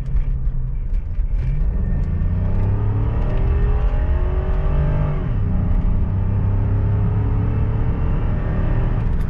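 Cadillac DeVille's 4.6-litre Northstar V8 under hard acceleration, heard from inside the cabin with the windows up. The revs climb for a few seconds, drop at an upshift about five seconds in, then pull on again.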